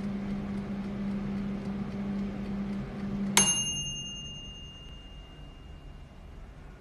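Chef & Chef YJ-702 air fryer running with a steady hum, which stops about three and a half seconds in as its mechanical timer runs out: the timer bell dings once and rings on for a few seconds. This marks the end of the cooking cycle.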